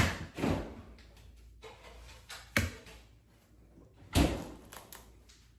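A few sharp knocks and thuds, each followed by a brief clatter: one at the start, one about two and a half seconds in, and the loudest about four seconds in.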